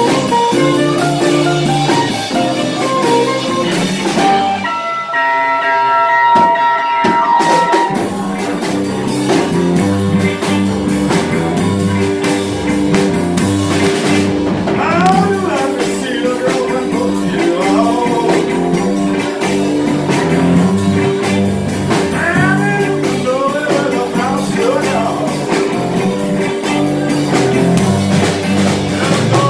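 Live swamp pop band playing a Louisiana R&B shuffle on electric guitars, bass and drum kit. About five seconds in, the bass and drums drop out for a couple of seconds while a few high notes hang, then the full band comes back in.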